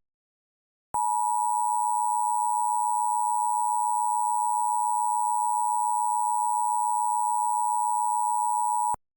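Emergency Alert System attention signal: the steady two-tone alarm of 853 and 960 Hz sounding together. It starts about a second in, holds for about eight seconds and cuts off sharply, announcing the spoken emergency message that follows.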